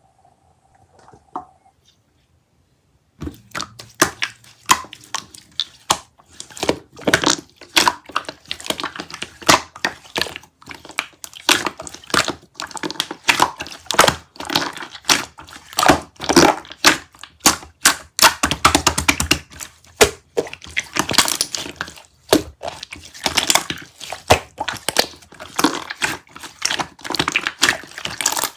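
Dense, irregular crinkling and crackling of something being squeezed and crumpled by hand, with many sharp snaps, starting about three seconds in.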